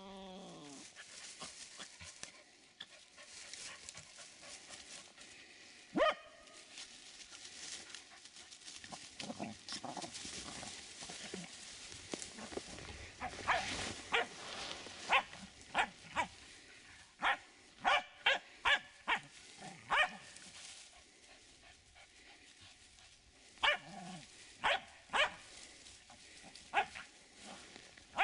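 A Finnish Spitz barks in sharp single barks at a badger: one bark about six seconds in, a quick run of about ten in the middle, and a few more near the end.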